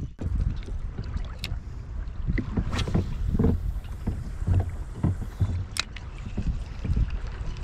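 Water lapping and sloshing around a kayak on a choppy sea, its deck flooded, with wind rumbling on the microphone. A few sharp splashes or knocks stand out.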